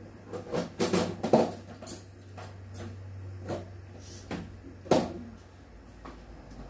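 Kitchen utensils and cookware clattering in a string of irregular knocks and clicks, over a low steady hum.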